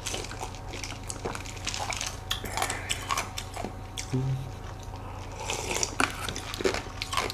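Close-miked eating sounds: quiet chewing and small wet mouth clicks as soft, spoonable cheesecake dessert is eaten, with light clicks of a spoon and sips from a plastic cup.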